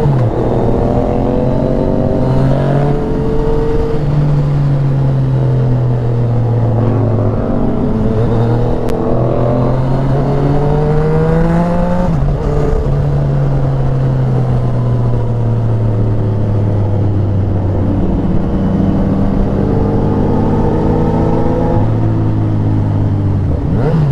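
Ducati Panigale V4 sportbike engine through a performance exhaust, ridden continuously: a loud, full engine note whose pitch climbs slowly and then drops several times as the throttle is opened and eased off through the gears.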